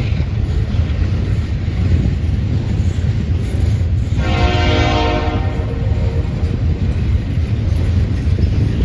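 Double-stack container train rolling past with a steady low rumble. About four seconds in, a distant locomotive horn sounds one short blast that fades away.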